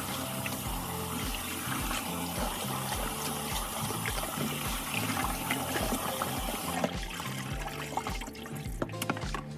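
Water running steadily, like a tap, and stopping about 7 seconds in, over background music with a steady beat.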